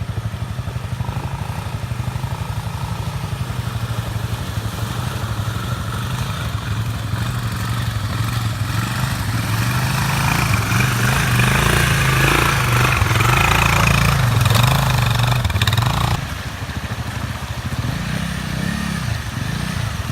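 Motorcycle engine running, working harder and louder from about eight seconds in, then dropping back suddenly at about sixteen seconds.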